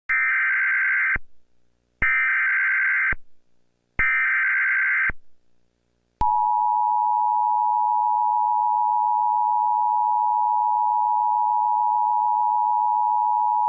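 Weather alert broadcast signal: three screeching one-second bursts of digital alert header data about two seconds apart, then a steady single-pitched alert tone starting about six seconds in.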